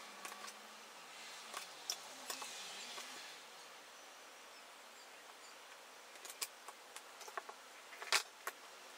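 Scattered light clicks and taps of clear acrylic panels and small parts being handled on a workbench, over a faint steady hiss; a few come about two seconds in, more gather in the last third, and the sharpest knock comes near the end.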